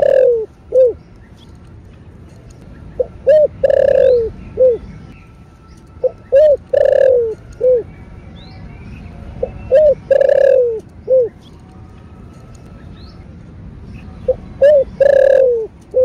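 Spotted dove cooing its song, the phrase repeated about every three seconds: two short coos, a long louder coo that falls in pitch, then a short closing coo.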